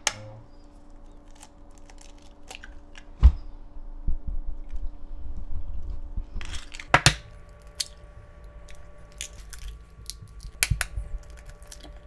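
Eggs being cracked one after another into a ceramic bowl: sharp cracks of breaking shell, the loudest about three seconds in and others near seven and eleven seconds, with fainter clicks between.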